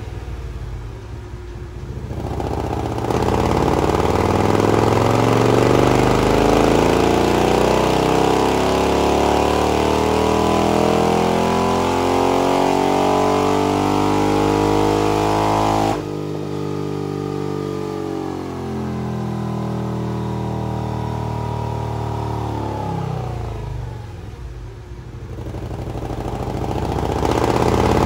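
Harley-Davidson Milwaukee-Eight V-twin, fitted with a Rocket 474 bolt-in cam and running through a 2-into-2 exhaust with louvered baffles, making a full-throttle pull on a chassis dyno. It idles, then about three seconds in the revs climb steadily under load for some thirteen seconds. The throttle then snaps shut, the revs wind down over several seconds to idle, and they pick up again near the end.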